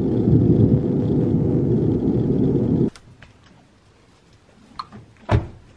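Low vehicle rumble for about three seconds that cuts off abruptly. It is followed by a few light knocks and one louder thump near the end.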